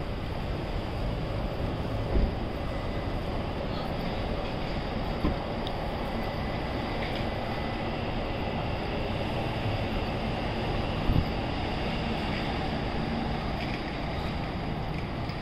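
Steady city street noise, a low rumble of traffic, with three brief thumps.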